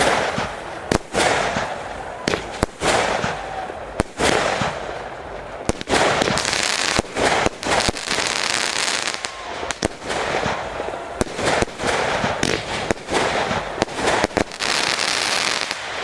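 Aerial firework shells bursting one after another, a sharp bang every second or so over a continuous hiss.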